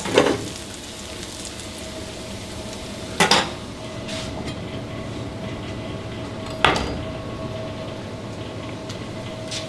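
Seasoned potatoes frying in a steel pan over a gas burner: a steady sizzle under a constant hum, broken three times by short clatters, just after the start, about three seconds in and about six and a half seconds in.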